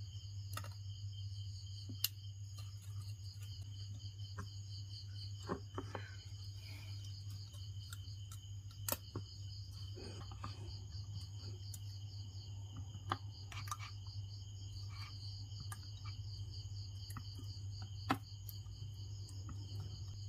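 Crickets chirping steadily in the background over a low, steady hum, with a few scattered light clicks and taps as the circuit board and parts are handled.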